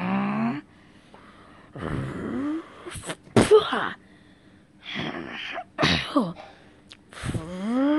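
A person's voice making fight noises: short grunts, sharp breathy 'hah' bursts and rising yells. There are about half a dozen in a row, with a longer rising cry near the end.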